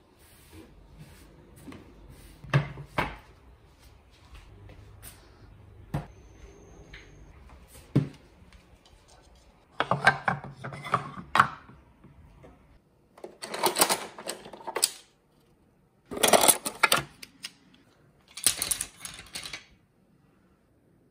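Kitchenware being handled: a few scattered knocks and clicks, then four bursts of rattling clatter, each a second or so long, in the second half.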